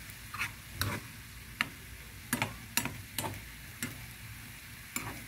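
Spatula scraping and knocking against a coated frying pan as diced pork, liver and green beans are stirred, in irregular strokes about every half second. A faint steady sizzle from the pan runs underneath.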